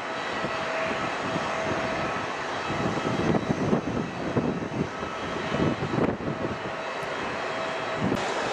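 Jet airliner engines at low taxi power: a steady roar with a faint whine, from a Jet2 Boeing 757 rolling slowly across the apron. Uneven low gusts of noise come and go between about three and six and a half seconds in.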